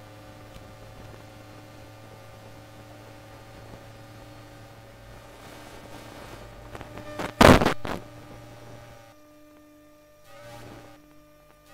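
Electromagnetic hum from a 1996 Tube Stock train's electrical equipment, picked up by a telephone induction coil: a steady low hum with several level whining tones above it. About seven and a half seconds in comes a loud, brief crackle of interference. After it the tones mostly drop out and the hum turns quieter.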